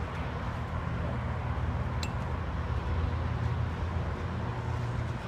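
Steady low mechanical rumble with a faint hum underneath, with one sharp click about two seconds in.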